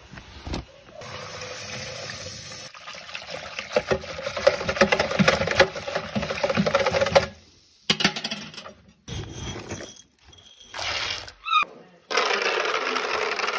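Puppy milk replacer being stirred and splashing in a plastic tub, then poured from a jug into a shallow feeding pan. It comes in several short clips with sudden cuts between them.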